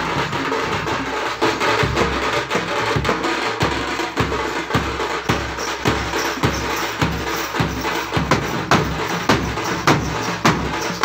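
A thappu (parai) drum troupe playing: round frame drums struck with sticks in a fast, dense rhythm over regular heavy strokes on large bass drums. The strokes grow louder and sharper in the second half.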